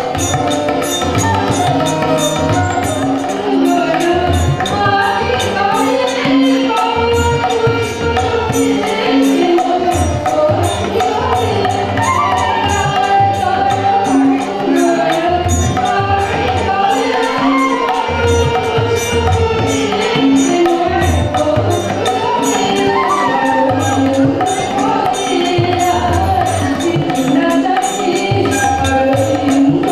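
A woman singing a melody into a microphone while playing a harmonium, with hand percussion keeping a steady beat underneath.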